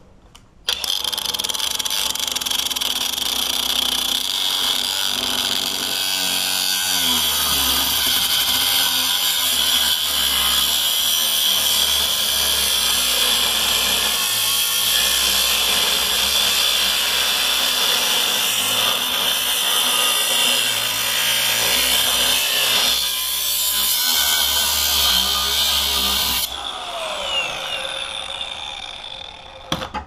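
Angle grinder with a thin abrasive cut-off wheel switched on about a second in and cutting through a steel padlock body: a loud, steady high whine. Near the end it is switched off and the whine falls away as the wheel spins down.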